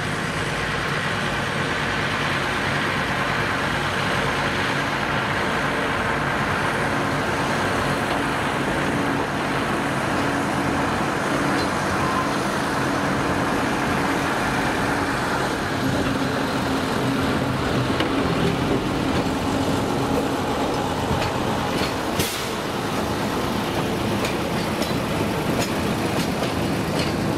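Narrow-gauge diesel locomotive 199 051 with its engine running steadily as it hauls a short freight train slowly past. There is a single sharp click about 22 seconds in.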